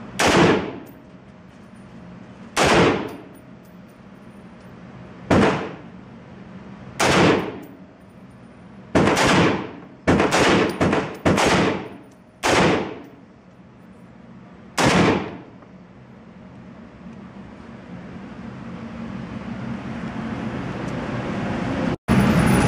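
A .308 Crusader Broadsword semi-automatic battle rifle firing about ten shots. The first few are spaced a couple of seconds apart, then comes a quicker string of four or five shots, then one last shot. Each sharp report echoes in the indoor range.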